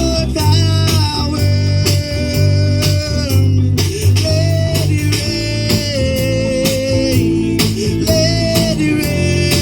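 Gospel song music: a guitar plays a melody of long held, sliding notes over bass and a steady beat.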